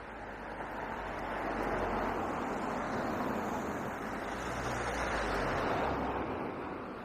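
Road traffic: a vehicle passing close by, its tyre and engine noise swelling about a second in, staying loud for several seconds and fading away near the end.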